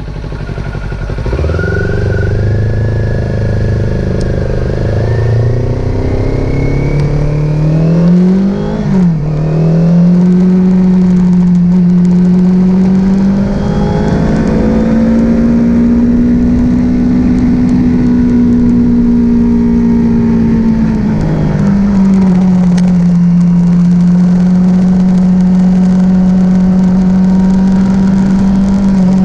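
Kawasaki Z400 motorcycle engine starting about a second in and revving up, its pitch climbing for several seconds before dropping back. It then runs steadily at a fast idle, rising and falling once in the middle before settling.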